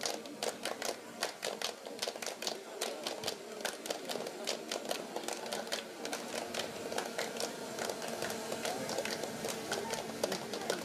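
Scattered hand clapping from a crowd: a continuous, irregular patter of sharp claps.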